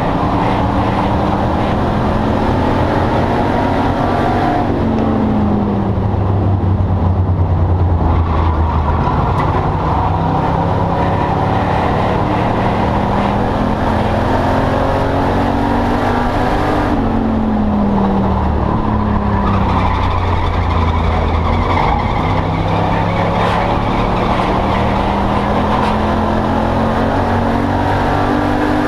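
Race car engine heard from inside the cockpit, running hard at racing speed; its pitch climbs and falls several times as the car slows for the turns and accelerates out of them.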